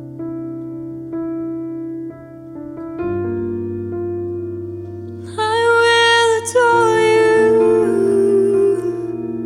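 Slow worship music: sustained electric piano chords that change every few seconds, with a female voice singing a long held note from about halfway through.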